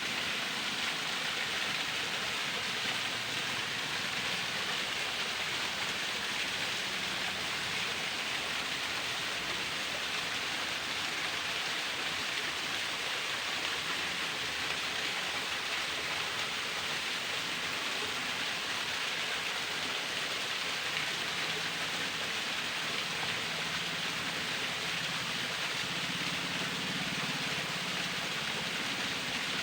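Thin waterfall: a steady hiss of falling, splashing water.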